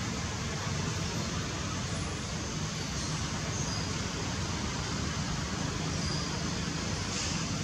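Steady outdoor background noise: an even hiss over a low rumble, with no monkey calls.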